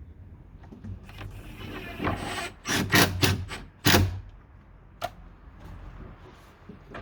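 Knocks and rattles of a metal gate latch hook being handled and fitted against a wooden closeboard gate, bunched together about one to four seconds in, then a single sharp click about five seconds in.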